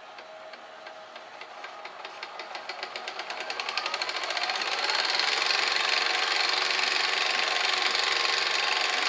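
GoVideo DVR4000 DVD-VCR's tape transport fast-forwarding a VHS cassette: rapid clicking that speeds up as the reels spin up, then merges into a loud steady whir about five seconds in. The repairer takes the clicking for a split tooth on the cracked, glued reel drive gear that doesn't line up with the other side of the gear.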